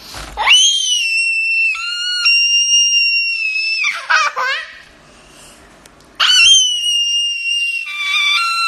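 A young girl shrieking playfully: two long, high-pitched held squeals with a short laughing burst between them, the second starting about six seconds in.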